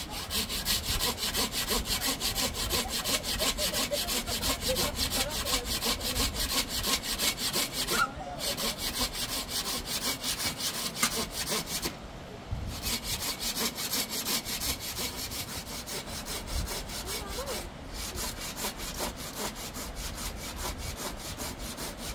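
Hand saw cutting wood in rapid, even strokes, stopping briefly three times.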